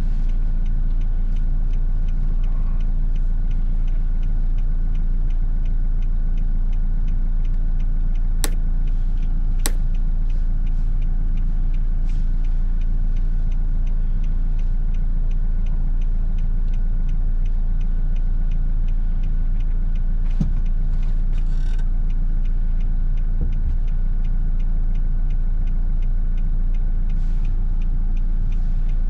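Nissan NV200 van's 1.5 dCi four-cylinder diesel engine and road noise while driving, a steady low rumble at even speed with no revving. Two sharp clicks come about eight and ten seconds in.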